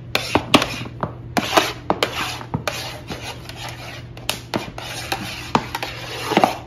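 Irregular rubbing and scraping with scattered clicks: a plastic water bottle being squeezed and handled while cloth is rubbed over a metal baking tray full of foam.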